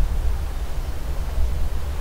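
Wind buffeting the microphone: an unsteady low rumble with a hiss over it.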